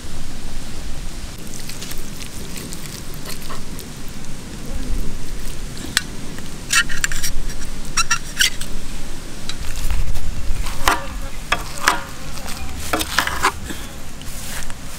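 Utensil clinking and scraping against a metal plate and pan as the cooked beef is served and pulled apart, in two bunches of short clicks, the first about six seconds in and the second near the end, over a steady low rumble of wind on the microphone.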